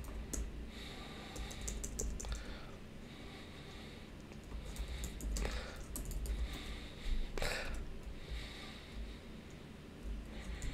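Computer keyboard typing in short irregular runs of key presses, with a few louder strokes about five and a half and seven and a half seconds in. A low steady hum sits under the keystrokes.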